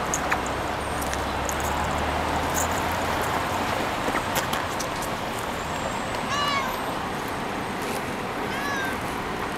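Tortoiseshell cat meowing twice: a meow about six seconds in and a fainter, shorter one near the end.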